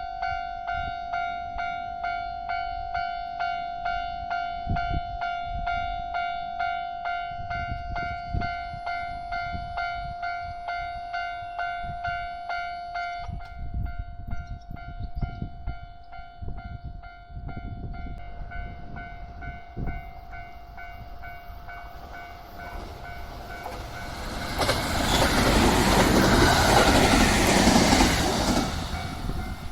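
Japanese level-crossing warning bell ringing in a fast, even, repeating pattern. A train approaches and passes through the crossing near the end, its noise swelling loud around 25 to 28 seconds in and then dropping.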